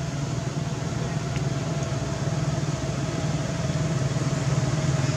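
An engine idling steadily, a low even hum that grows a little louder toward the end.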